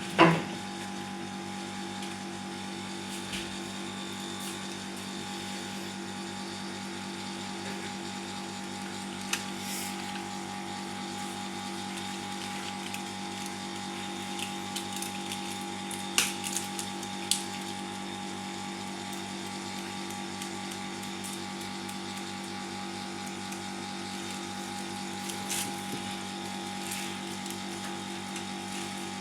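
A small motor humming steadily on a few fixed tones, with a brief loud sound at the very start and a few faint clicks.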